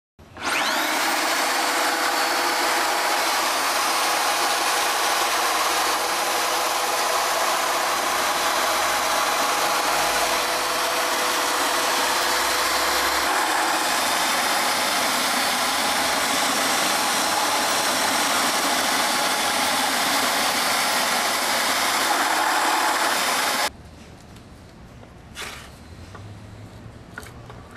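Electric FEIN polisher driving a planetary head with three spinning diamond pads: it starts with a brief rising whine, then runs steadily as the pads polish a concrete countertop. It cuts off abruptly near the end, leaving a few faint clicks.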